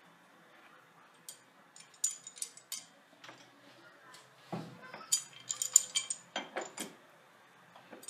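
Sharp metallic clinks and taps as hand tools and a plumbing fitting knock against ceramic wall tile: a few scattered ones about two seconds in, then a quicker, louder run from about five to seven seconds.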